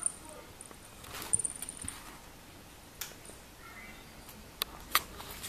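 Pet cat moving about: soft rustling with a handful of sharp taps and clicks, the loudest about a second in and two close together near the end.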